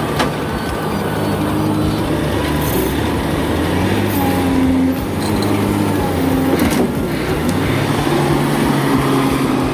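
Heavy truck's diesel engine running under load, its pitch stepping up and down as it works through the gears, with a few short clicks and rattles.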